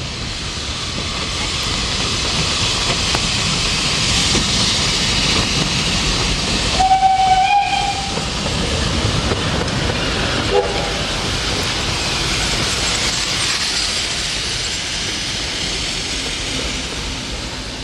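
Steam locomotive running past with a steady rush of exhaust and wheel noise that builds, holds and eases away near the end. About seven seconds in, its steam whistle gives one blast of about a second, followed by a shorter, fainter tone about three seconds later.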